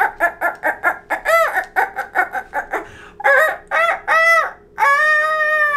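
Chicken clucking in a quick run of short calls, each rising and falling in pitch, then one long held call near the end.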